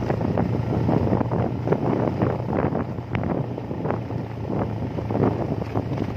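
Wind buffeting the microphone on a moving vehicle, over a steady low engine hum, with frequent short knocks and rattles.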